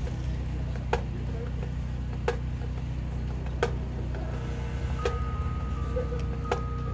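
Marching band show opening: sharp clicks about once every second and a half, then soft held notes coming in about five seconds in, over a steady low hum.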